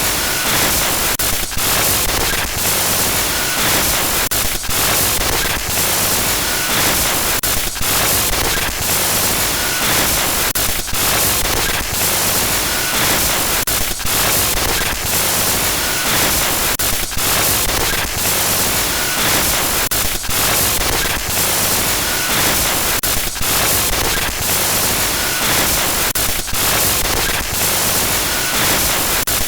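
Glitch-noise horror sound effect: loud, harsh static hiss that cuts out briefly about every second and a half, giving a stuttering, broken-signal texture.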